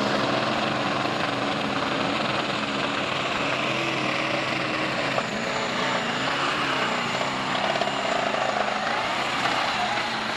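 Turbocharged diesel pulling-tractor engine at full throttle hauling the sled, a loud continuous drone whose pitch wavers about six seconds in.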